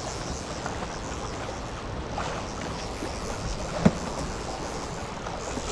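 Steady wind and water noise on an outdoor microphone, with a single sharp knock about four seconds in.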